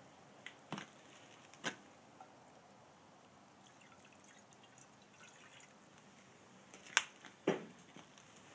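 A burning Swedish torch log fire crackling: a few scattered sharp pops, the loudest two close together about seven seconds in.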